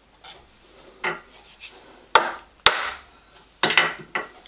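A handful of sharp metallic knocks and clicks from hands handling a protractor and a tilting angle plate while setting them to 9 degrees against the cylinder block. The sharpest knock comes a little past halfway.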